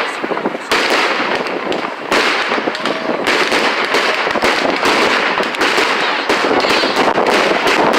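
Fireworks display: a dense, unbroken run of bangs and crackling pops from bursting firework shells, growing slightly louder near the end.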